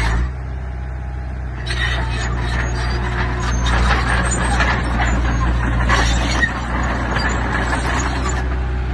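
Heavy diesel earth-moving machinery running steadily, with irregular metallic clattering and scraping setting in about two seconds in, as from tracks and stone being pushed.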